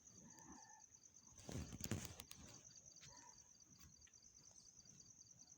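Near silence with a faint, steady, high-pitched pulsing trill of insects, and a brief noisy burst about a second and a half in.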